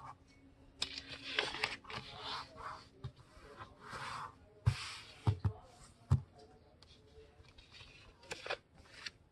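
A sheet of paper being handled, folded and creased: irregular rustling and scraping, with a few sharp taps against the table around the middle.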